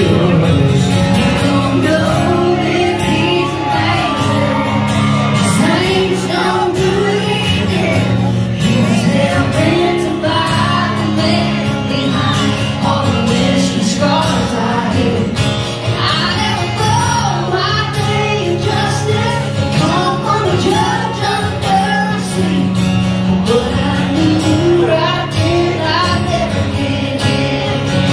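Live country ballad: a woman singing lead into a microphone over strummed acoustic guitars and band, heard from the audience through the PA.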